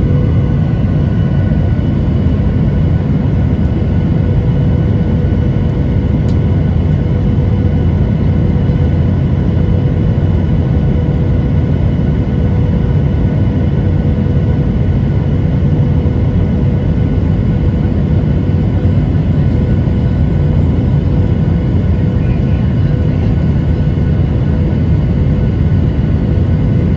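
Boeing 737-900ER's CFM56 turbofan engines running: a steady rumble with a steady whine over it, unchanging throughout.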